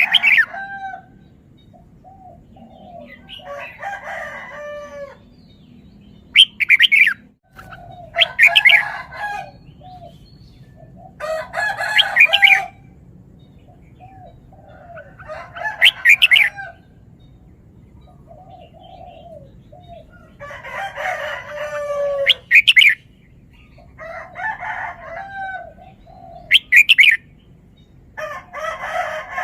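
Red-whiskered bulbul singing: short, loud phrases of quick whistled notes about every four seconds. Softer short calls come between the phrases, over a steady low hum.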